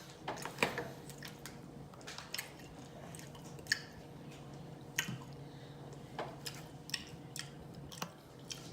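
A person chewing food with wet, open-mouth smacking: irregular short clicks and squelches every half second or so.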